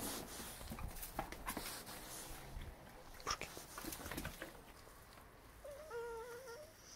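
A dog gives one short, wavering whine near the end. Before it come scattered clicks and scuffs from dogs moving about.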